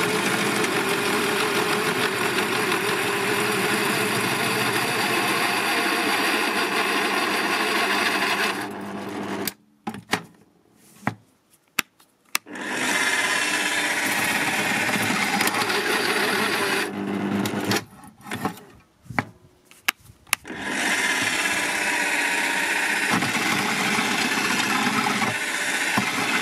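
Parkside PTBMOD 710 B2 bench pillar drill's 710 W motor running at 500 rpm while a 12 mm twist bit cuts through 4 mm steel, chips curling off the bit. The sound drops out almost to silence twice for a few seconds, with a few clicks, then the drilling resumes. At this low speed the owner finds the motor can lack power near the end of the hole.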